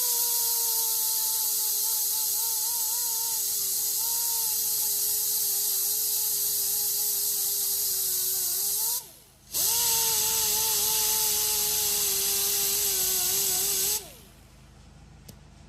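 Power sander running against an alloy wheel, sanding out deep curb rash; its whine sags and wavers as it is pressed into the metal. It stops briefly about nine seconds in, spins back up, and stops shortly before the end.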